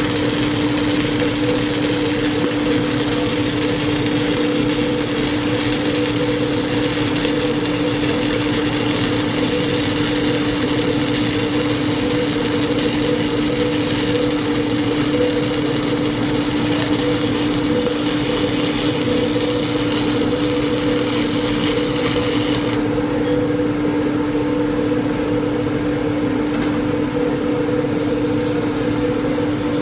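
Stick (arc) welding: the arc crackling and hissing steadily over a steady two-tone hum. The crackle cuts out for about five seconds near the end while the hum carries on.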